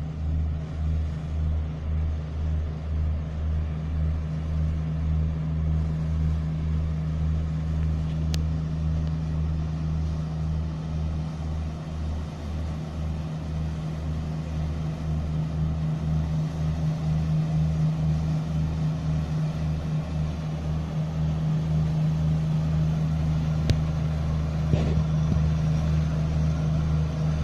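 Boat engine running steadily, a deep low throb that pulses evenly, with a hiss of water and wind over it.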